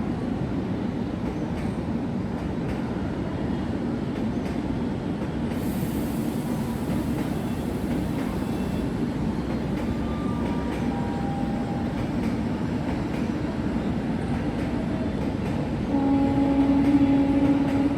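A train running with steady noise. Near the end a train horn sounds: one steady tone held for about two seconds, the loudest sound heard.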